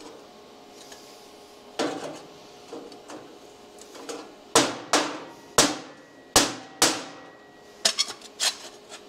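Plasma-cut 14-gauge sheet steel pieces knocking and clinking against each other as their slots are worked together: about ten sharp metallic taps with a short ring, most of them in the second half.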